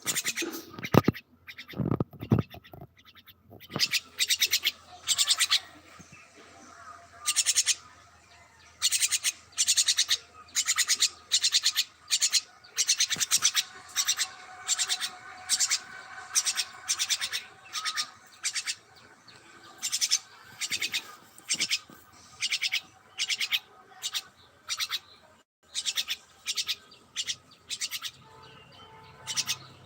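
Birds chirping: quick runs of short, high, sharp chirps repeated again and again, with a few lower, louder sounds in the first seconds.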